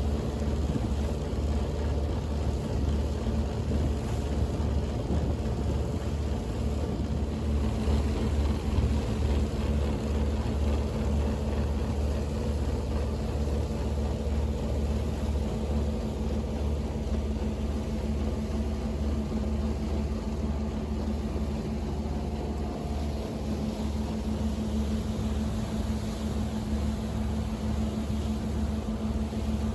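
A small powerboat's engine running steadily under way: a constant low drone with a steady rush of noise over it.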